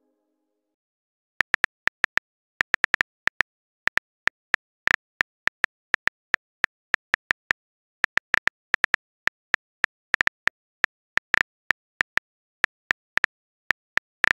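Smartphone on-screen keyboard typing clicks as a message is typed. The clicks are short and sharp, come several a second in an uneven rhythm with brief pauses, and start about a second and a half in.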